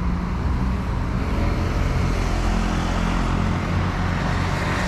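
Road traffic: a motor vehicle's engine running nearby over a steady low rumble.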